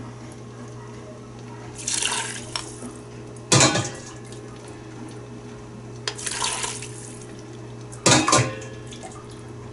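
Broth being strained into a steel stockpot: a mug scoops it from a second pot with a sharp clink against the metal, then it is poured through a plastic mesh strainer in a short splash, each twice, about every two seconds in turn. The strainer catches the small lumps. A low steady hum runs underneath.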